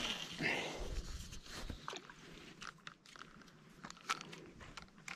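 Spinning rod and reel being handled: scattered light clicks and rustles, busiest in the first second or two, with a few sharper ticks later on.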